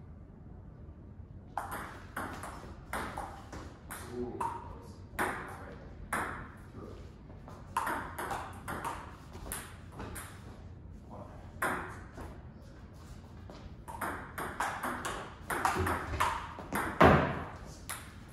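Table tennis rallies: the ball clicking back and forth off paddles and the STIGA table in quick runs of hits with short pauses between points. A brief, louder sound comes near the end.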